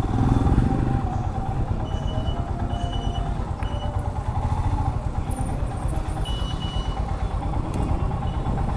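Motorcycle engine running steadily with a fast, even low pulse. A few short high beeps sound over it.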